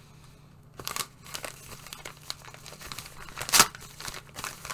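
Packaging being crinkled and torn open by hand, starting about a second in, with scattered crackles and the loudest sharp crackle about three and a half seconds in.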